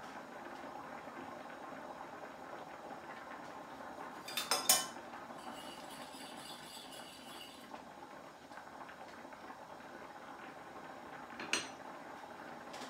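Metal spoon clinking against a saucepan and a metal sieve: a quick cluster of clinks about four seconds in, followed by a faint high ringing for about two seconds, and a single clink near the end, over a faint steady background hiss.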